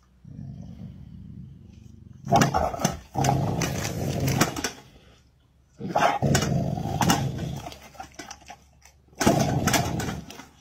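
Golden retriever growling over food: a quiet low growl at first, then three loud bouts of growling that start about two, six and nine seconds in.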